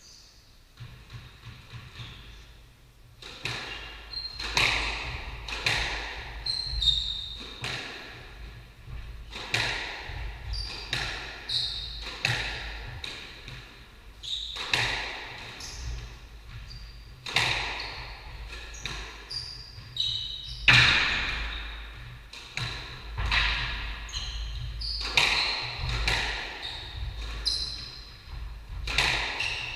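Squash rally: the ball cracks off racquets and the court walls about once a second, each hit echoing around the court, with short high squeaks of shoes on the wooden floor. The hitting starts about three seconds in.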